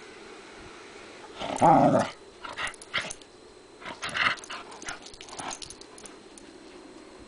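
A Scottish terrier and a Rottweiler play-fighting, with play growls. The loudest comes about a second and a half in, followed by several shorter ones.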